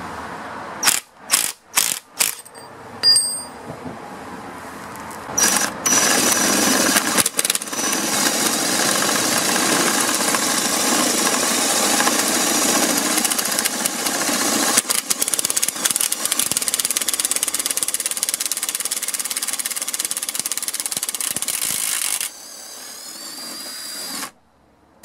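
A few sharp clicks, then an impact wrench fitted with a drill chuck running for about sixteen seconds, its hammer mechanism rattling rapidly and steadily; it stops near the end, leaving a quieter noise.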